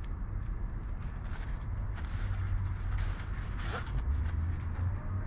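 Steel hollow punches clicking lightly against each other as they are handled in a fabric punch-set pouch, with a few short ticks near the start, over a steady low rumble.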